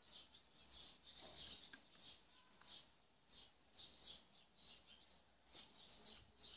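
Faint chirping of small birds: a steady run of short, high chirps, several a second.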